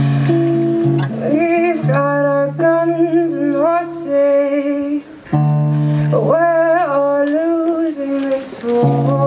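A woman singing long, wavering notes over a strummed acoustic guitar, in two phrases with a brief pause about five seconds in.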